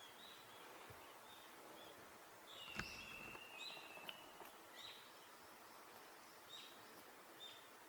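Faint bird calls in a quiet outdoor hush: scattered short high chirps, with one longer, steady high note around three seconds in. A single sharp click lands at about the same moment.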